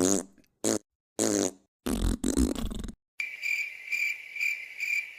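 Four wet fart noises in quick succession, the last one the longest, then a cricket chirping steadily about three times a second. The cricket is the stock comedy cue for an awkward silence.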